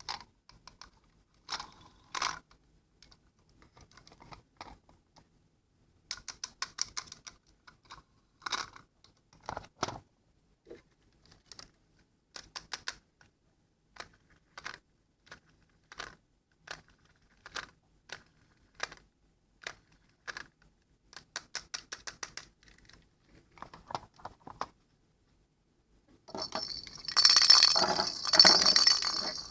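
Small hard objects being handled, clicking and tapping against each other in short clusters. Near the end, a loud, dense rattle of many small hard pieces tumbling together.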